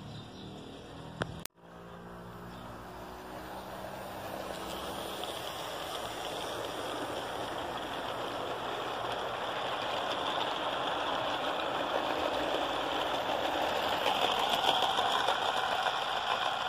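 Garden-scale model freight train running on the garden layout's track: a steady rolling noise of its wheels on the rails that grows gradually louder. A short low hum and a sharp click come just before it, about a second and a half in.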